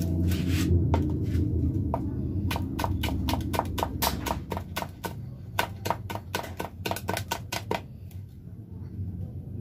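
Kitchen knife chopping on a plastic cutting board, a quick run of sharp taps at about five or six a second that starts about two and a half seconds in and stops near the end, over a steady low hum.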